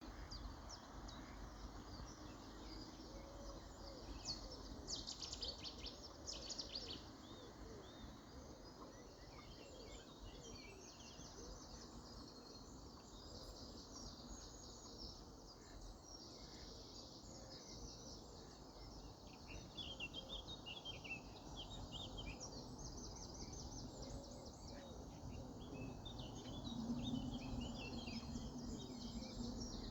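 Several birds chirping and singing over a low outdoor background noise, with a steady low hum coming in near the end.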